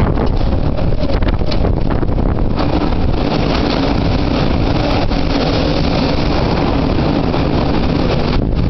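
Typhoon-force wind buffeting the microphone, a loud, continuous rushing roar. It swells into a fuller rush about two and a half seconds in.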